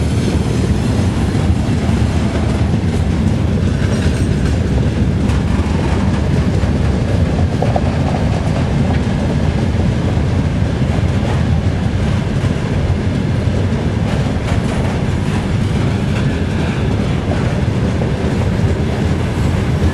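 Freight wagons rolling past on the rails: a steady, loud rumble of steel wheels with clickety-clack over the rail joints.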